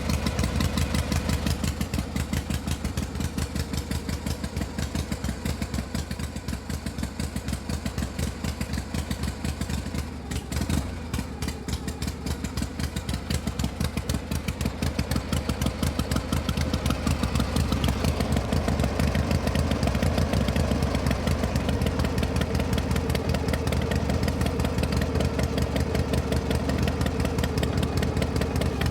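Motor vehicle engine idling with a fast, even pulse. About ten seconds in it briefly drops and gives a short clunk, then from about halfway it runs a little louder.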